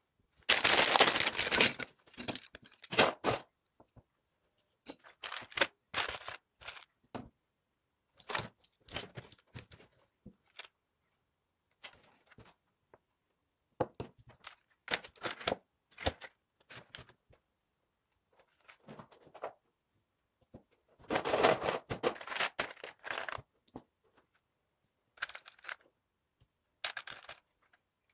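Plastic LEGO pieces being handled and set down: irregular clicks, rattles and scrapes, with two longer spells of rattling, one near the start and one about three-quarters through.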